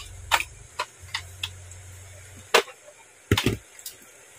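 Sharp plastic clicks and knocks from handling and swapping the attachment heads of a handheld electric massager, the loudest a double knock a little past three seconds in. A low hum runs under the first clicks and stops with a click about two and a half seconds in.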